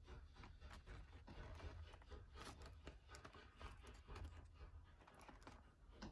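Faint crinkling of a plastic bag and dry rustling of dried shiitake mushrooms being handled: a run of small irregular crackles over a low steady rumble.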